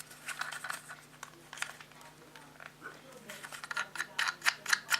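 Parts of a car phone holder clicking and clattering as they are handled and taken apart: a few scattered clicks at first, then a quicker run of sharper clicks in the last two seconds.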